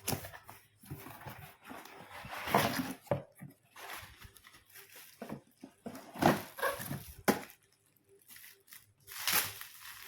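Steamer packaging being handled: irregular rustling and crinkling as the nano steamer is unboxed, with a sharp knock about seven seconds in.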